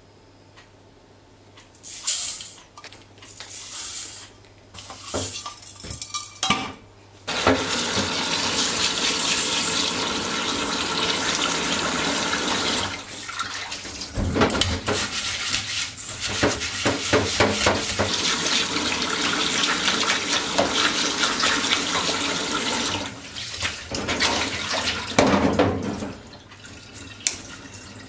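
Rice being washed in a stainless steel sink. A few short rattles and clinks come first. From about seven seconds in, tap water runs steadily, and grains are swished and rinsed in a mesh strainer and metal pan, with clinks of the pan and strainer against the sink.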